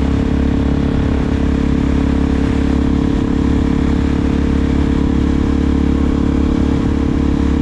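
Suzuki DR-Z400SM's single-cylinder four-stroke engine running at a steady speed through an aftermarket Delkevic exhaust, with an even, unchanging note.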